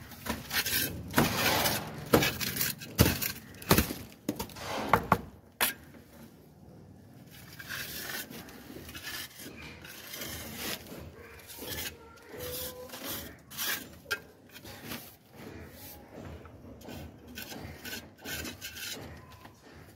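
Steel hand trowel scraping and cutting wall plaster along a wooden straightedge in repeated strokes, sharp and loud for the first five seconds, then lighter and more broken.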